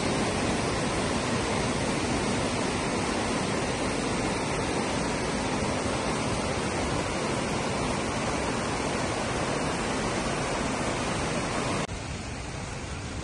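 Muddy floodwater rushing over rocks in a rain-swollen stream, a loud, steady rush of water. Near the end it cuts to a quieter, steady background noise.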